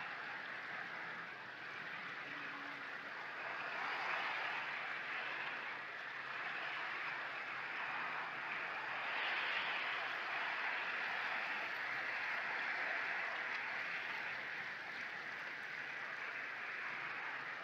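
Small sea waves washing onto a shingle beach, a steady hiss that swells about four seconds in and again from about nine seconds.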